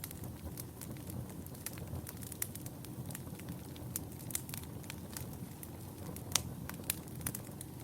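Wood fire burning in a fireplace: a steady low rumble of flames with frequent irregular crackles and pops, two sharper pops near the end.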